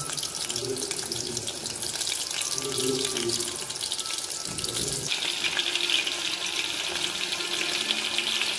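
Coated chicken pieces deep-frying in hot refined oil in an aluminium kadai, a steady dense sizzle that turns brighter and hissier about five seconds in.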